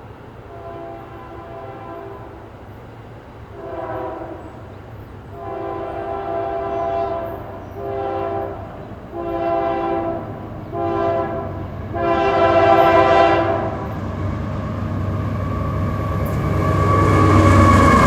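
Nathan Airchime K3LA three-chime locomotive air horn sounding a grade-crossing sequence of about seven blasts, long and short, ending on a long one. Then the locomotive's engine rumble grows loud as it comes by, with a high tone bending downward near the end.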